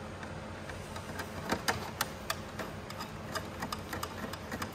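Small, irregular metallic clicks and taps of screws being worked out of a spark machine's casing with a screwdriver and tweezers, thickest about a second and a half in, over a steady low hum.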